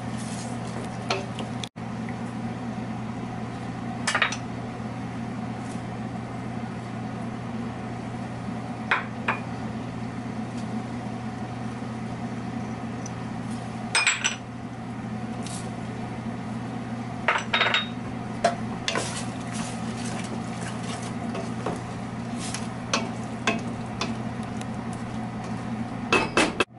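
Wooden spoon stirring a stainless steel pot of stewing red kidney beans and vegetables, with scattered knocks and clinks of the spoon and small ceramic bowls as seasonings are added, over a steady low hum.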